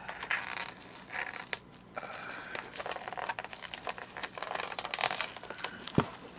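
Plastic cling wrap crinkling and tearing as it is peeled off a plastic takeout bowl, with a couple of sharp snaps.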